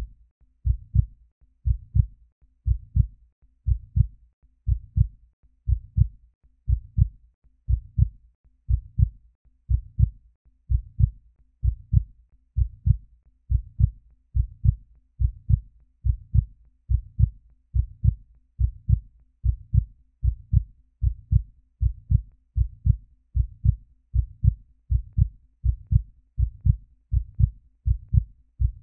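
Heartbeat sound: a steady lub-dub of low double thumps, about one beat a second.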